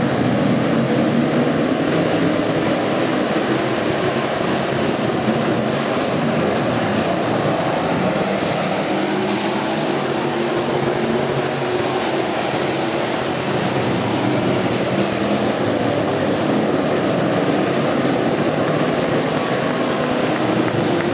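Several dirt-track stock cars racing around the oval together: a steady, loud drone of multiple engines running at speed.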